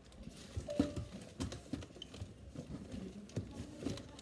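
Irregular light knocks, taps and clicks of objects being handled and moved about, one to three a second.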